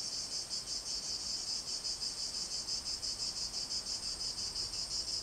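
Insects chirping in a steady high trill, pulsing rapidly and evenly.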